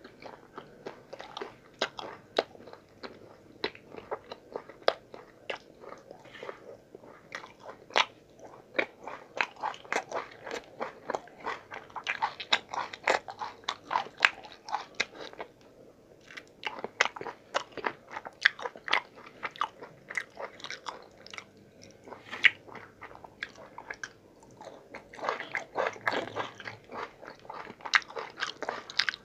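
Close-miked chewing and mouth sounds of a man eating an Indian meal of paratha and vegetable curries by hand: a dense run of short clicks, with a couple of brief lulls.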